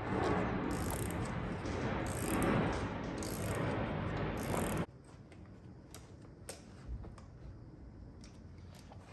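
Socket ratchet clicking quickly and steadily as a broken exhaust manifold bolt, with a nut welded to its tip, is backed out. The clicking stops suddenly about five seconds in, followed by a few light clicks of metal.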